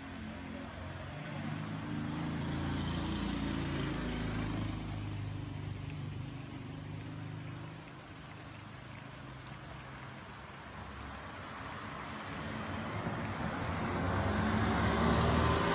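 Motor vehicles passing on the street: one engine rumbles by and fades about halfway through, then another approaches and grows louder near the end.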